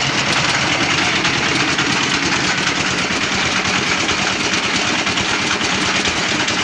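Homemade rock crusher running under load: a steady mechanical drone with a dense, constant rattle of stone being broken inside it.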